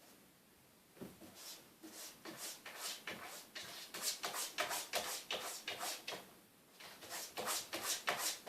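Cat scrabbling at and rummaging in a bedside-table drawer: a quick run of scrapes and rustles, a short lull about six seconds in, then another flurry.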